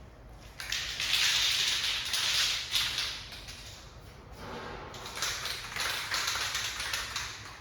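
Aerosol spray can of primer hissing in two long passes, each about two and a half seconds, with a short pause between them.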